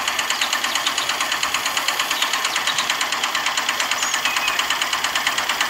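Miniature walking tractor's single-cylinder engine running with a steady, fast, even chugging beat.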